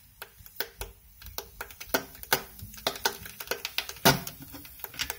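Irregular small clicks and crackles from a wet stainless-steel saucepan of water on a stove hotplate as it is switched on, with one louder knock about four seconds in.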